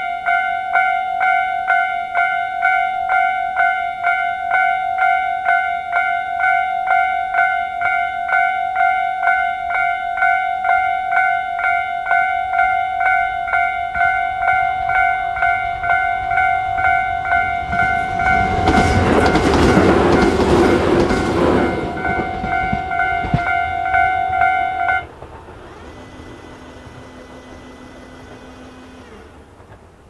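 Japanese level-crossing electronic warning bell, the standard Tobu-type tone, ringing in rapid repeating dings. Around 18 to 22 seconds in, a Tobu 850 series electric train passes over the crossing with a loud rush. The bell then cuts off suddenly about 25 seconds in, and a faint hum follows as the barrier arms rise.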